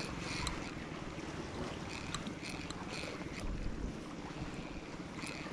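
Wind buffeting the microphone over the steady wash of surf, with faint short clicks coming in pairs every second or so.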